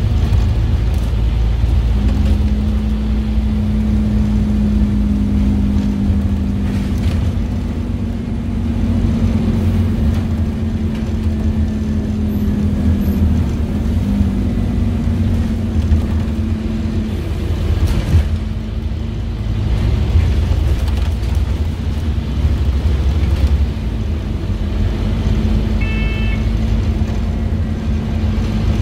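Scania DC9 diesel engine and ZF Ecomat automatic gearbox of a Scania OmniCity bus heard from inside the passenger saloon while under way: a steady low rumble with a drone that holds from about two seconds in until past halfway. A brief high tone sounds near the end.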